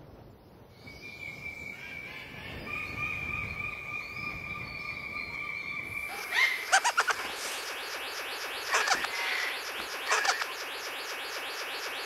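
Male blue bird of paradise hanging upside down in its display, giving a rapid run of buzzy, descending notes with a few louder sharp calls that begin about halfway through. Before that come about six seconds of two steady high tones.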